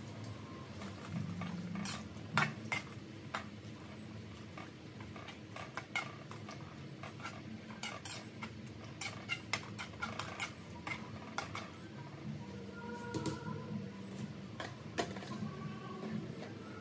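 Metal tongs clicking and scraping against a metal wok as leafy greens are turned over, in irregular clusters of sharp knocks over a steady low hum.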